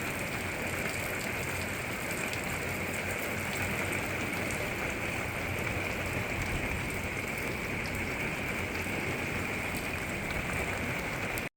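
Steady rain falling, an even hiss with no let-up, which cuts off abruptly near the end.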